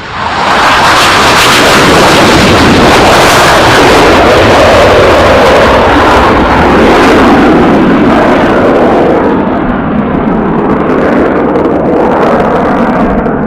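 Jet aircraft engines at high thrust: a very loud, harsh roar that sets in suddenly and slowly falls in pitch as the aircraft passes.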